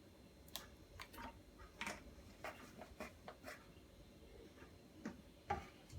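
Light, scattered clicks and taps of a bowl and kitchen utensils being handled, about a dozen small knocks spread unevenly.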